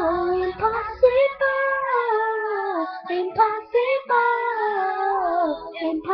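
A boy singing solo in an unbroken, high child's voice, holding long notes that slide and waver from pitch to pitch in several drawn-out phrases with short breaths between them.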